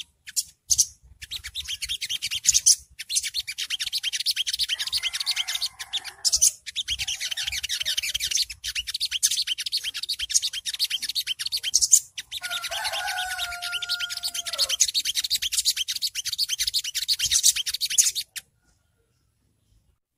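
Sunbird (sogok ontong) singing its 'ngriwik' song: a fast, high-pitched, rapid twittering chatter, with a lower drawn-out whistle in the middle that falls away at its end. The song stops about two seconds before the end.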